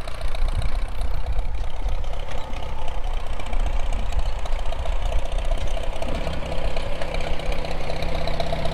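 An old Farmall tractor's engine idling with an uneven pulsing beat over a low rumble; a steady low hum joins after about six seconds.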